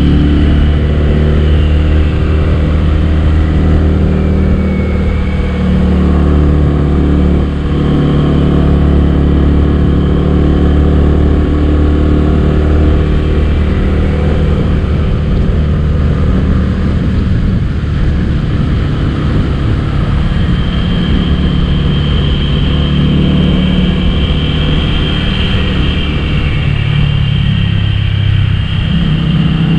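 Honda Winner X motorcycle engine running under way, a loud steady drone whose pitch drifts up and down a little.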